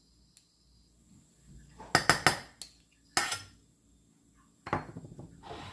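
Metal spoon clinking against a stainless steel saucepan and a small dish while ingredients are scraped in: a few quick clinks about two seconds in, one more about a second later, and more clinks near the end.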